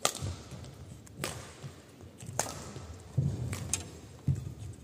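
Badminton rally: a racket strikes the shuttlecock four times, a sharp crack about every 1.2 s, with dull thuds of players' feet landing on the court between hits.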